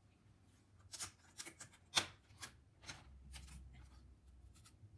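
Plastic screen bezel of an Acer Predator laptop being pried off by hand: a series of sharp clicks as its clips pop loose, the loudest about two seconds in, with quieter rubbing in between as it pulls away from its double-sided tape.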